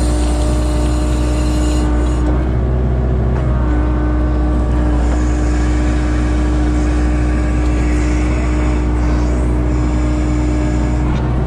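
Diesel engine of a Kubota KX057-4 mini excavator running steadily, heard from inside the cab, as the hydraulic arm dumps a bucket of soil and swings the bucket around. A steady low hum with a held tone that shifts slightly about two seconds in.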